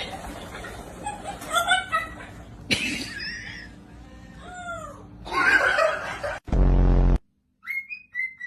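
Pet parrot calling: a series of squawks and calls that rise and fall in pitch. About six and a half seconds in comes a short, loud, harsh buzz, then a brief gap and whistled notes near the end.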